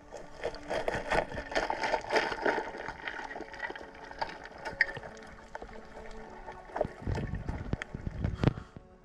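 Water sloshing and gurgling with scattered clicks and knocks, and a few heavier thumps near the end.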